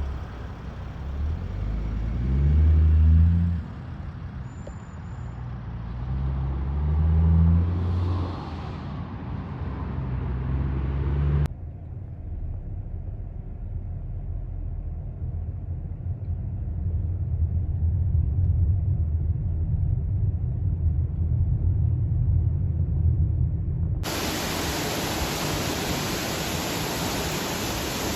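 Road traffic: engines of vehicles passing on the highway, their pitch rising several times, for the first ten seconds or so. Then a steady low rumble, and from near the end a loud, even rushing of falling water.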